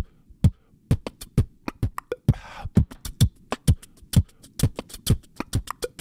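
Beatboxing: a steady, fast beat of mouth-made kick drums and sharp snare clicks, about four hits a second, with a short hiss about two and a half seconds in.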